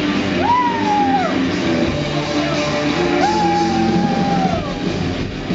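Live rock band playing loudly, electric guitars to the fore. A high wailing line slides up, holds and falls away twice.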